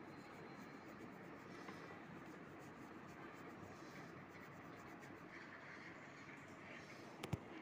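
Faint scratching of a fine paintbrush spreading thick black poster colour over paper, with a sharp click near the end.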